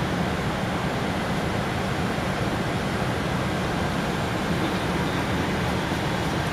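Steady rumble and rush of noise inside the cockpit of a Gulfstream G550 business jet, from its Rolls-Royce BR710 turbofan engines and the airflow, holding at an even level.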